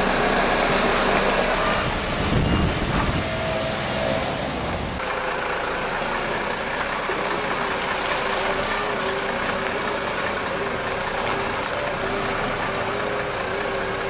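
Heavy diesel truck running steadily, with a noisier stretch about two seconds in; after about five seconds it settles into a steadier hum with a faint held whine.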